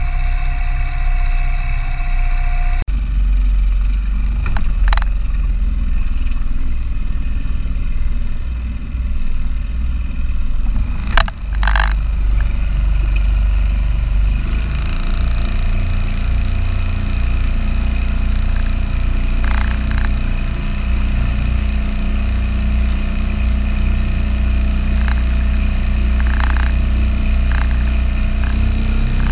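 A small motor running steadily, most likely the outboard driving an inflatable dinghy, with a sharp knock about eleven seconds in and a few lighter clicks. It is preceded by a different steady engine drone with a whine, which cuts off abruptly about three seconds in.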